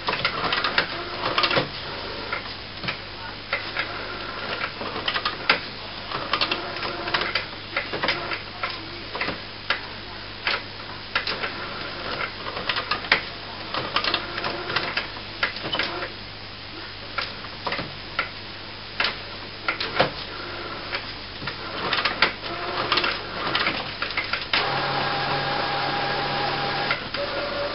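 HP Photosmart B109a inkjet printer going through its power-on start-up cycle: its mechanism clicks and clacks irregularly, then, near the end, a motor starts running steadily with a whine. The cycle is priming the print heads, drawing ink up the continuous ink supply tubes.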